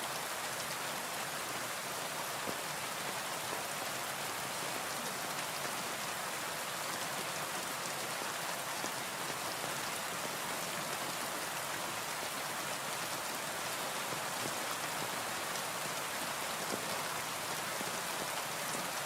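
Steady rain pattering on a window pane, an even hiss with many small scattered drop ticks.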